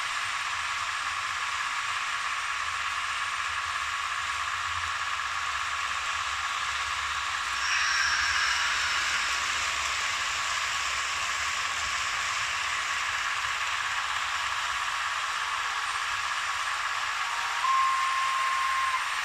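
Märklin H0 model trains running on metal track: a steady whir of small electric motors and wheels rolling, swelling briefly about eight seconds in as a train runs close by. Near the end a single steady tone sounds for about a second.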